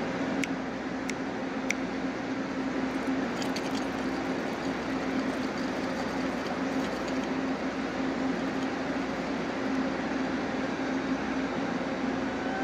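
A steady mechanical hum over constant background noise, with three quick sharp ticks a little over half a second apart near the start.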